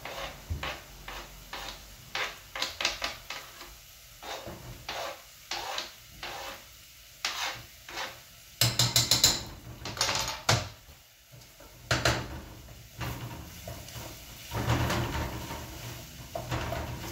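A knife tapping and scraping chopped garlic off a cutting board into a saucepan, many quick knocks with a louder clatter of strikes about nine seconds in. In the last few seconds a wooden spoon scrapes and knocks in the pan, stirring the garlic into the frying onion.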